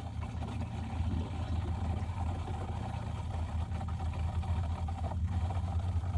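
Campervan water pump running with a steady low hum, pressurising the toilet's water supply line for a leak test.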